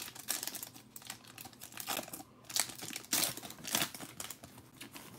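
Foil wrapper of a basketball trading-card pack being torn open and crinkled as it is pulled apart, an irregular run of crackles.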